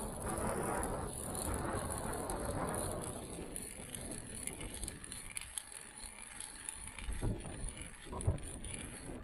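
Wind buffeting the microphone, strongest in the first few seconds and then easing, over the grinding and clicking of a hand ice auger being cranked down through lake ice.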